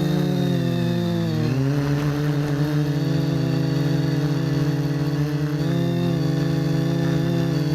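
Electric motors and propellers of an FPV quadcopter buzzing in flight. The pitch dips and rises as the throttle changes a second or so in and again about six seconds in, and holds steady in between.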